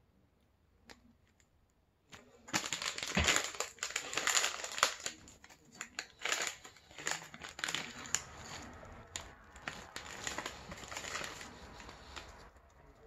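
A plastic snack-pack wrapper of Pokémon honey cookies being opened and handled, crinkling. It starts about two and a half seconds in, is loudest over the next few seconds and dies away near the end.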